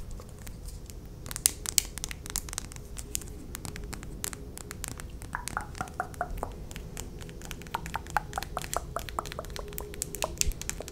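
Long acrylic fingernails tapping fast on plastic lip gloss containers, close to the microphone: a quick, uneven run of light clicks, with a short series of taps falling in pitch around the middle.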